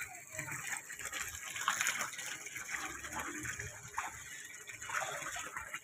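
Water pouring from a pipe into a partly full concrete tank, splashing steadily onto the water surface as the tank fills.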